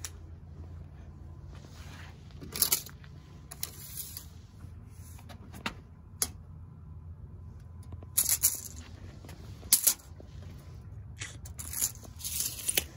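Short metallic rattles and scrapes in about eight separate bursts, from a steel tape measure being pulled out and handled, over a steady low rumble.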